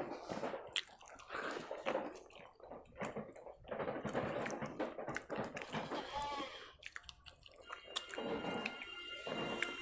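Wet, squishy eating sounds of rice and curry eaten by hand: irregular squelches, smacks and clicks of mixing and chewing.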